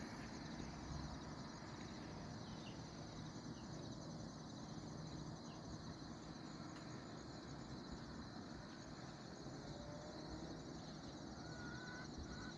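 Faint rural morning ambience: a steady, high trilling of insects such as crickets, with a few short, faint bird chirps scattered through it.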